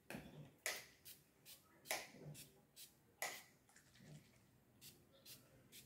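Faint, short squirts from a hand pump spray bottle of tick repellent misting onto a dog's fur, about a dozen quick hisses, unevenly spaced at roughly two a second.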